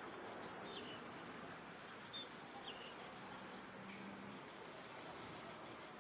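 Quiet outdoor background with a few faint, short, high bird chirps scattered across it, over a low steady hiss.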